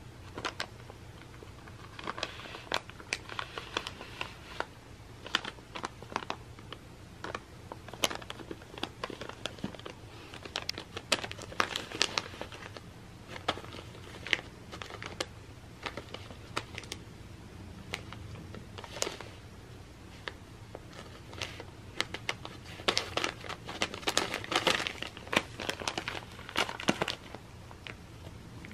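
A cat pawing and biting at a gift package, its wrapping crinkling and crackling in irregular bursts, busiest in a few spells.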